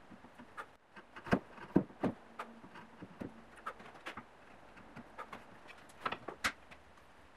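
Sharp wooden clicks and knocks of a hand chisel paring hard oak. They come as scattered single strikes with quiet gaps between, a loud cluster about a second in and another near the end.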